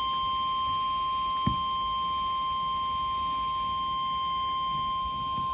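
NOAA Weather Radio warning alarm tone: one steady, high electronic beep at about 1050 Hz, held without a break, announcing a flash flood emergency message. A faint low thump about one and a half seconds in.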